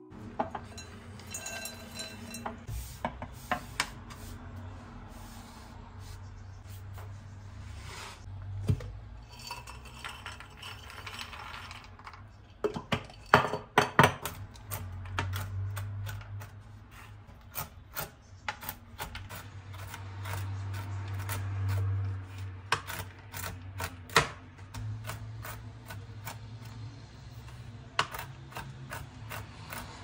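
Kitchen knife chopping walnuts on a wooden cutting board: quick, irregular knocks of the blade on the board in runs with short pauses, the loudest strikes about halfway through.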